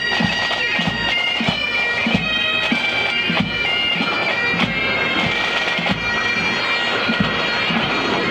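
Pipe band marching: bagpipes playing a tune over their steady drones, with drums beating march time at about two strokes a second.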